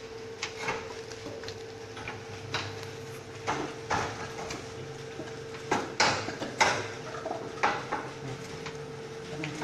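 Irregular metallic clinks and knocks of hand tools against the steel bottom track of a folding gate being fitted, a few louder knocks near the middle, over a faint steady hum.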